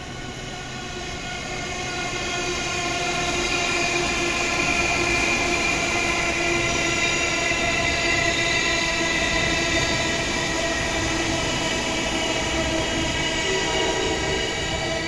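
JR East E231-series electric commuter train passing through the station without stopping: a steady whine of several tones over the rumble of its wheels. It grows louder over the first few seconds as the train arrives and stays loud while the cars go by.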